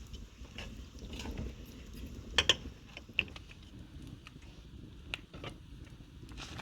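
Scattered light clicks and knocks of objects being handled, the loudest a close pair about two and a half seconds in.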